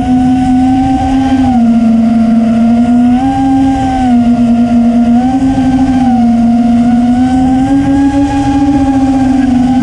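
Onboard sound of a five-inch FPV quadcopter's Xing 2306 2450kv brushless motors spinning HQ S4 propellers: a steady buzzing whine whose pitch rises and dips slightly with throttle every second or two, over a low rumble of wind on the camera's microphone.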